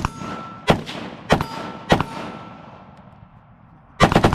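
Four single gunshots about two-thirds of a second apart, each echoing, with a thin ringing tone hanging on after two of them. Near the end a fast burst of rapid fire begins.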